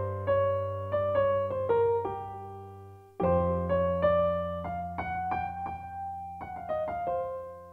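Background piano music: slow notes that strike and fade over held low notes, with a new phrase starting about three seconds in.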